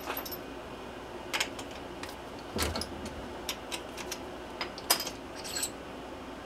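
Scattered light metallic clicks and clinks of small steel tools being handled around a stopped metal lathe, with one duller knock about two and a half seconds in.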